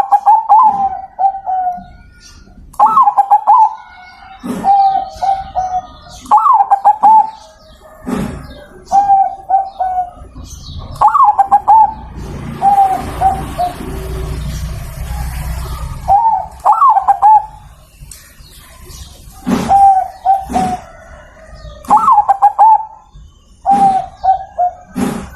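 Zebra dove (perkutut) cooing while held in the hand: a repeated phrase, each opening on a higher note and falling into a quick string of lower coos, roughly every two seconds. About halfway through, the calls stop for a few seconds and there is a stretch of noise.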